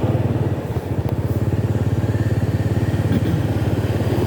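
Motorcycle engine running at a steady speed while riding, with an even, rapid low throb.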